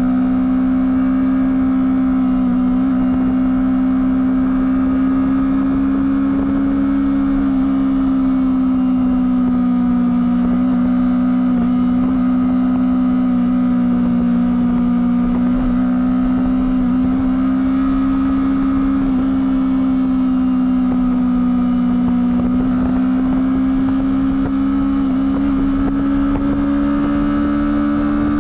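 Honda CBR250RR engine through its stock exhaust, running steadily at high revs, its pitch drifting slightly up and down.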